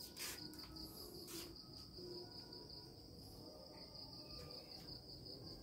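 Faint, steady pulsing trill of a cricket, with two soft clicks in the first second and a half.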